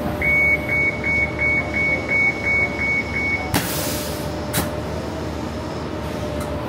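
Electronic vehicle warning beeper sounding about ten short high beeps, about three a second, over steady vehicle running noise. The beeping stops about three and a half seconds in with a knock, and a second knock follows a second later.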